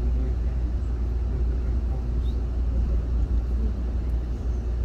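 Steady low rumble inside an Amtrak Superliner passenger car as the train rolls along the track, backing up.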